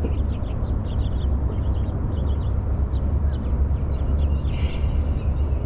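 Wind rumbling on the microphone, with small birds chirping in the background throughout.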